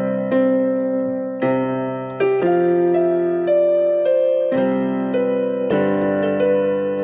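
Keyboard with a piano sound playing sustained chords, a new chord struck roughly every second, with a melody moving on top; no singing.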